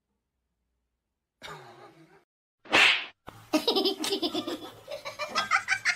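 A person laughing in repeated pulses from about halfway through. Just before it comes a single short, loud burst of noise, and before that a brief faint vocal sound after about a second of silence.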